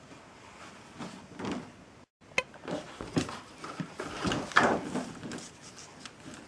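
Handling noise of hand puppets being moved in a wooden toy puppet theatre: rustling with several sharp clicks and knocks. The sound cuts out completely for a moment about two seconds in.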